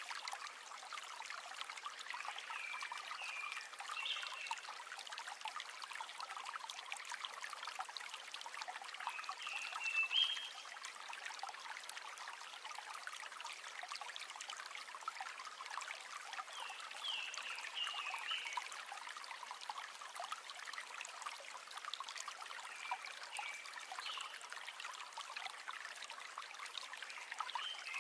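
River water trickling and babbling steadily. Short high chirps from a small animal come back every few seconds.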